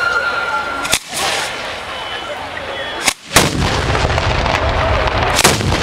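Batteria alla bolognese: a ground-level chain of firecrackers and bombs going off in a dense, continuous crackle, with heavier bangs about a second in, just after three seconds (the loudest, a quick double bang) and again near the end.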